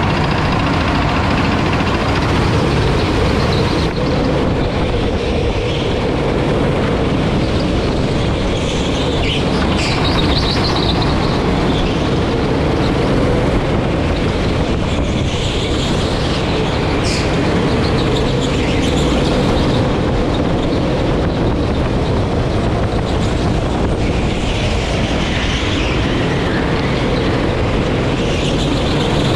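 Rental go-kart engine running steadily at racing speed, heard up close from the kart itself, with the noise of the other karts around it.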